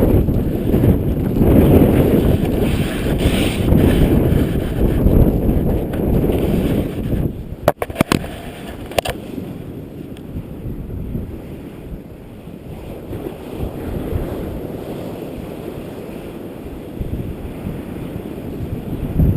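Strong wind buffeting the camera's microphone with a low rumble, heavy at first and easing off about seven seconds in. A few sharp clicks come around eight seconds in.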